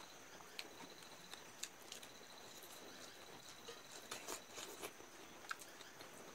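Mukbang eating with the hands: faint chewing and scattered soft smacking and clicking sounds, a little busier about four to five seconds in.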